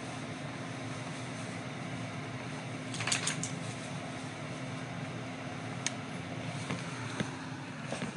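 A steady low mechanical hum, with a short cluster of sharp clicks about three seconds in and a single click near six seconds.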